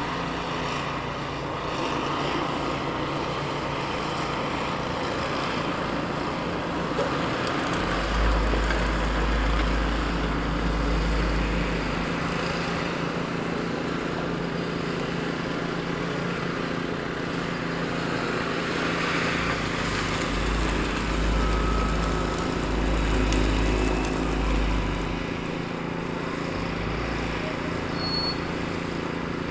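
Ram 3500 pickup truck's engine running as the plow truck drives slowly and turns, a steady rumble and hum. The low rumble grows heavier twice, about a third of the way in and again past the middle.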